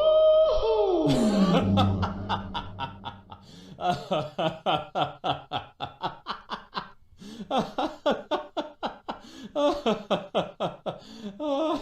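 Laughter sound effect: a person laughing in rapid, repeated 'ha-ha' pulses, in several runs with short breaks between them. It opens with a short pitched tone that rises and then slides down.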